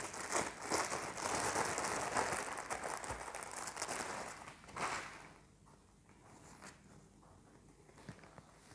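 Clear plastic bread bag crinkling as it is handled and opened, for about the first five seconds; then it goes quiet, with a few faint ticks.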